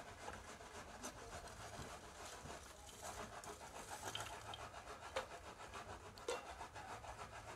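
Faint clinks and rustles of lumps of wood charcoal being set by hand into a coal pot, with two sharper clicks in the second half.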